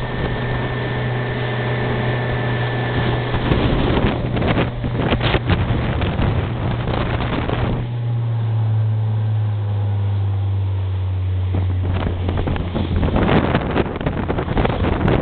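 Fishing boat's engine running with a steady low drone, under wind buffeting the microphone and water rushing in the wake. For a few seconds past the middle the wind and water noise drops away, leaving the engine drone plain, and its note falls a little.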